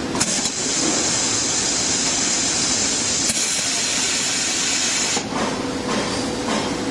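Air-operated single-head piston liquid filler running a fill stroke into a plastic bottle: a steady hiss that starts just after the beginning and cuts off sharply about five seconds in, as the fill ends.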